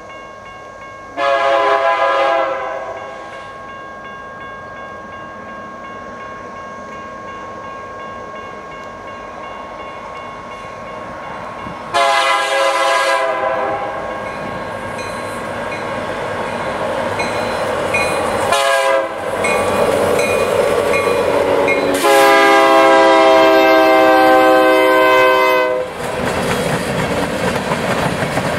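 Air horn of a BNSF EMD SD70MAC diesel locomotive sounding the grade-crossing signal: two long blasts, a short one, and a final long blast, a chord of several tones. Under it the train rumbles steadily as it approaches, and near the end empty coal hopper cars roll past with wheel noise on the rails.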